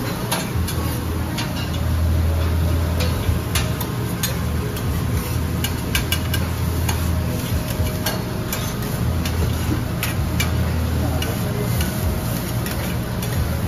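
Metal spatulas tapping and scraping on a steel teppanyaki griddle as the chef works the food: irregular sharp clicks and taps over a steady low hum.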